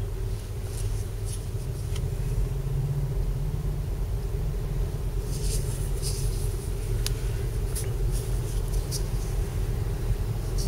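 Steady low rumble of a running vehicle heard from inside the cab, with a few faint clicks.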